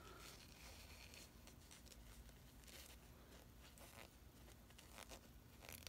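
Faint soft rustling of cotton wadding from a Zippo lighter insert being pulled apart into strips by hand, a few brief scratchy strokes over near-silent room tone.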